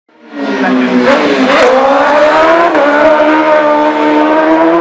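Road-racing superbike engine at high revs. Its pitch wavers about a second and a half in, then climbs slowly as it keeps accelerating.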